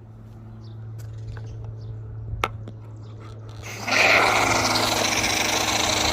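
Pressure washer spraying through a foam cannon: a steady low hum, then about four seconds in a loud hiss of spray starts over the pump motor's running tone.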